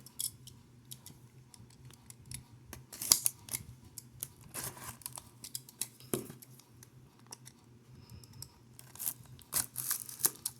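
Scissors snipping and packaging being handled as a sealed box is opened: scattered sharp clicks and a few short rasping bursts.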